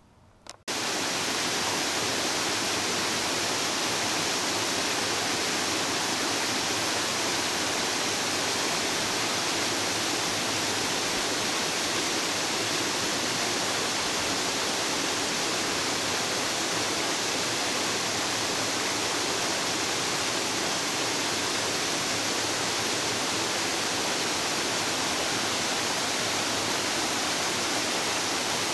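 Small waterfall cascading over rock ledges: steady rushing water that cuts in abruptly just under a second in.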